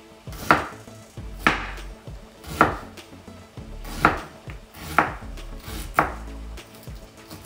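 Large kitchen knife chopping fresh ginger on a wooden cutting board: six sharp strikes about a second apart.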